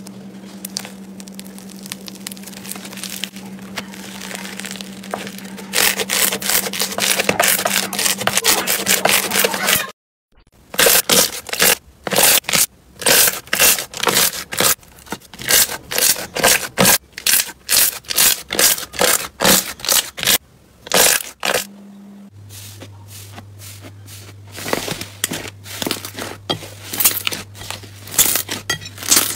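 Hands squeezing and kneading slime in three clips: foam-bead slime crackling densely, then a white slime giving many sharp separate pops and clicks, then softer crackling and squishing near the end. A steady low hum runs under the first and last parts.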